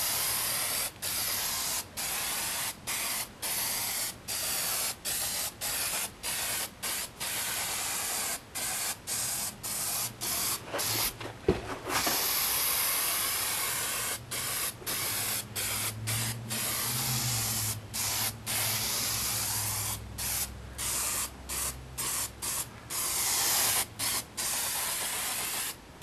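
Aerosol spray-paint can spraying in a continuous hiss, the nozzle let go briefly many times, with a short pause and a sharp click about eleven seconds in.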